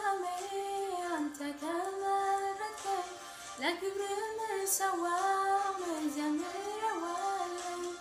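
A female voice singing a mezmur, an Ethiopian Christian hymn, solo in long, gliding, held phrases, with a breath and a new phrase starting on an upward scoop about three and a half seconds in.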